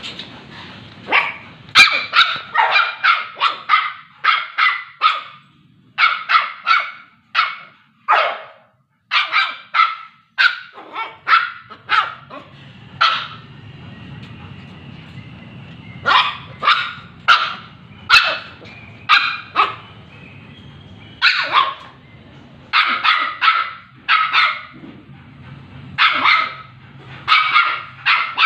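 Pomeranian puppies yapping: short, high-pitched barks in quick runs of several, with pauses of a second or two between runs.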